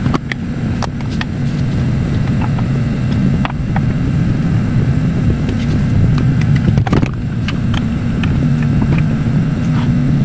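A motor vehicle engine rumbling steadily close by, its low drone wavering slightly in pitch. Scattered light clicks and knocks of tin cans being handled and stacked sound over it, with a louder knock about seven seconds in.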